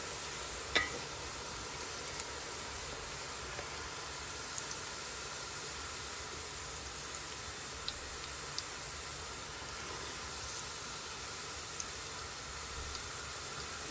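Sliced onions frying in oil in a metal pot, a steady sizzling hiss, with a few light taps of a wooden spoon on the pot, the clearest about a second in. The onions have turned golden over a medium flame.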